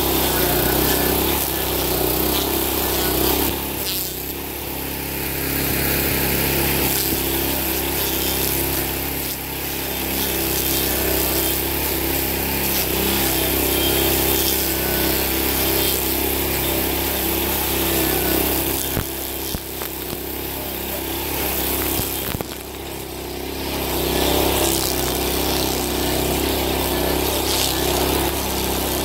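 Honda GX390 single-cylinder engine running under load as it drives a Blueshark M1 grinding wheel into a birch stump, with a steady engine note under the noise of wood being chewed and chips thrown. The grinding eases off briefly a few times as the wheel comes off the wood, then bites in again.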